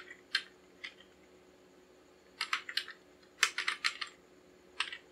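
Typing on a computer keyboard: a few separate keystrokes, then two quick runs of key clicks in the middle, and a couple more near the end.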